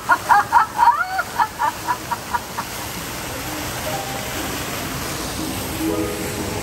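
A recorded villain's cackling laugh, about ten quick fading 'ha's over a couple of seconds, then the steady splash of a fountain jet falling into the water.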